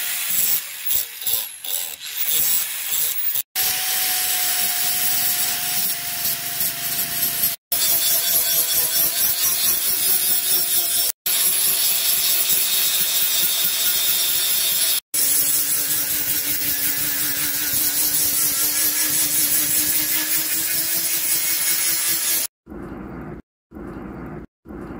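Handheld angle grinder with an abrasive disc grinding the bevel of a forged steel axe head: a loud, continuous harsh grinding with a motor whine that drifts down in pitch at times, broken by a few abrupt cuts. Near the end it gives way to a quieter hiss from a charcoal forge fire, chopped into short pieces.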